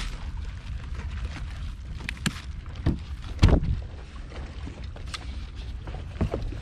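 A few knocks on a plastic cooler as a fish is packed in, the loudest about three and a half seconds in as the cooler lid is shut, over a steady low rumble of wind and water.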